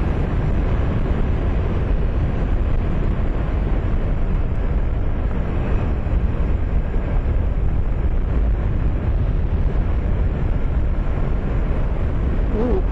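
Steady wind rush on the microphone of a 2008 Honda Nighthawk 250 motorcycle cruising at about 50, with the bike's engine and road noise underneath.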